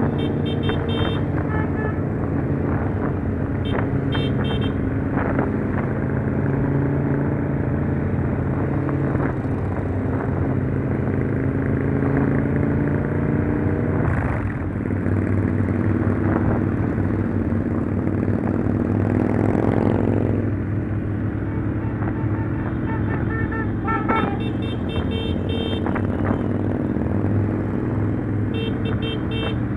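Motorcycle engine running under way. Its pitch climbs as it accelerates from about halfway through, then drops at a gear change about two-thirds through. Short horn toots sound a few times, near the start and again near the end.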